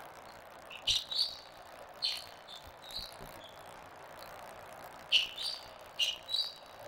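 Court shoes squeaking on the squash court floor as the players walk, in short high chirps that often come in pairs, over a steady background murmur.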